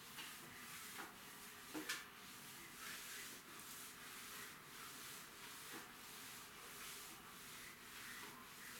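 Mop swished back and forth across a wet tiled floor in repeated strokes, with a few light knocks in the first two seconds.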